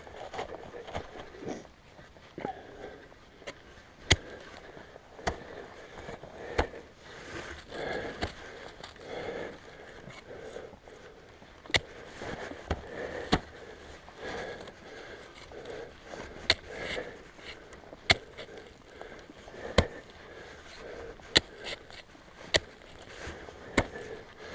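Ice axe and boots striking firm snow in a steep climb: sharp crunching hits every second or two, over the climber's breathing.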